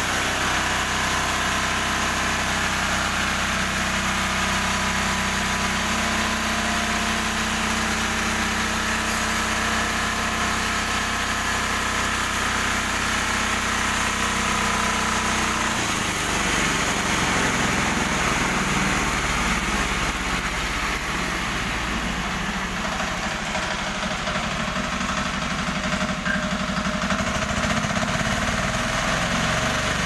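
Portable band sawmill's small engine running steadily, its tone changing to a rougher, busier sound about halfway through as the saw head travels along the log.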